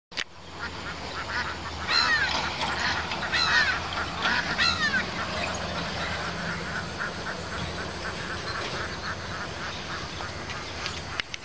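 Birds calling near water: a few loud calls about two, three and a half, and nearly five seconds in, over a steady run of quicker, fainter repeated calls.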